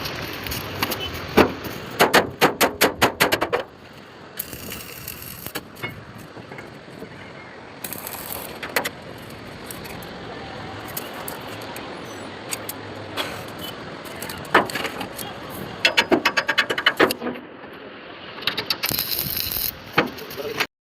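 Rapid runs of metal strikes, about six blows a second, typical of a hammer on steel. One run comes a couple of seconds in and another about three quarters of the way through, with a few single knocks in between over steady workshop noise.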